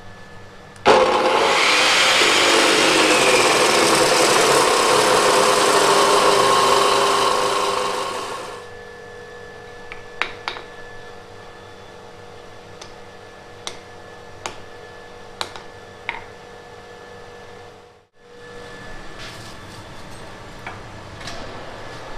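A loud, steady rushing machine noise runs for about seven seconds and winds down. Then come a handful of sharp, scattered hammer strikes on hot steel at the anvil as the tip of the forged toasting fork is drawn out.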